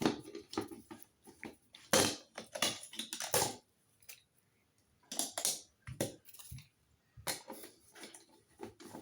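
Irregular clicks, knocks and scraping of plastic and screws as a pull-cord switch box is handled and worked off the ceiling, with a short pause around the middle.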